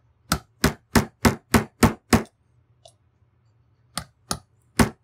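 Hammer tapping a punch to drive in the roll pin that retains the firing pin in a Ruger 10/22 bolt: seven quick sharp taps, about three a second, then a pause and three more near the end.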